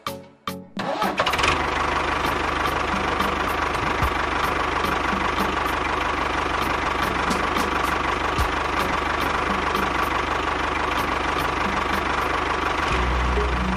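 DIY mini tractor running with a steady engine-like noise and a constant hum, starting abruptly about a second in.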